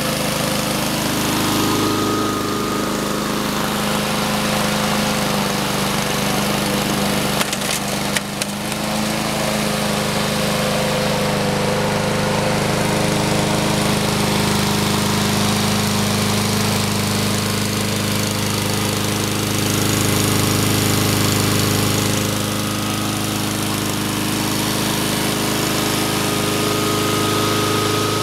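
Honda single-cylinder engine of a Husqvarna HU700F walk-behind lawn mower running at a steady speed. There are a couple of brief clicks about eight seconds in.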